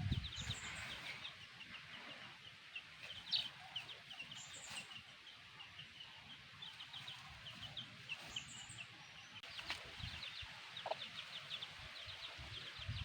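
Chicks peeping: a steady stream of many short, high peeps, with a higher chirp now and then.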